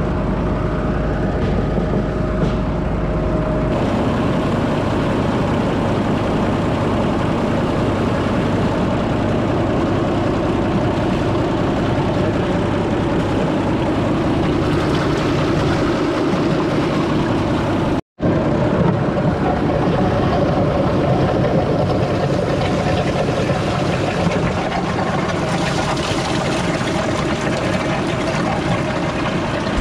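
John Deere 7710 tractor's six-cylinder diesel running steadily, with water rushing into the Amazone UX 3200 sprayer's chemical induction hopper.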